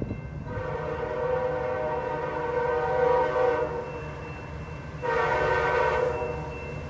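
Canadian National diesel locomotive CN 5771's multi-chime air horn sounding two blasts as the train approaches: a long blast of about three seconds, then a shorter one of about a second starting about five seconds in. A steady low rumble of the train runs underneath.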